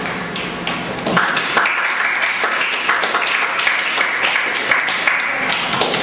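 Audience applauding, the clapping setting in about a second in and going on densely.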